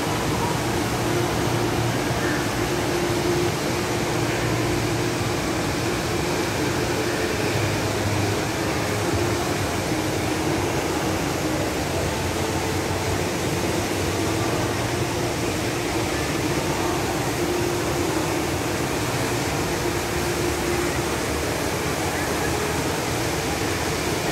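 Steady rushing of the Rain Vortex, a tall indoor waterfall plunging from a glass dome into a pool, an even unbroken roar of falling water.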